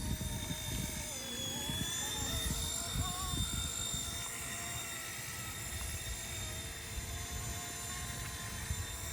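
RC Era C189 MD500 electric remote-control helicopter running, its motor and rotors giving a steady buzzsaw-like whine that wavers slightly in pitch during the first few seconds. Low gusty rumble of wind on the microphone underneath.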